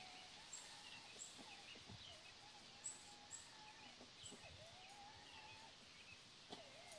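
Faint birdsong: scattered short chirps and high whistles over a quiet outdoor background, with a faint wavering lower tone.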